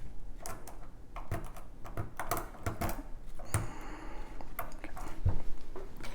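Lock pick and tension wrench working the pins of a 6-pin kik cylinder: irregular small metallic clicks, with a short scrape partway through, as the pins are set without the lock opening.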